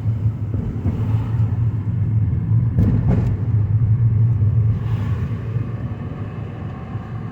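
2009 Mazda 5 being driven, heard from inside the cabin: a steady low engine and road rumble, with one brief knock about three seconds in.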